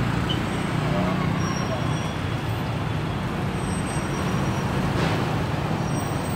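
Steady city street traffic, with motorbikes and cars passing on the road, a constant low rumble.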